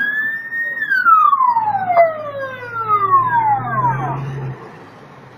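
Emergency vehicle siren sounding a single wail. Its pitch rises briefly, then falls slowly over about three seconds, and it stops about four and a half seconds in.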